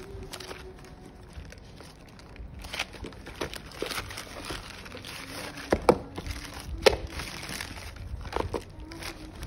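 Plastic courier mailer bag crinkling and rustling as it is handled and opened and its contents are pulled out, with two sharp louder clicks about six and seven seconds in.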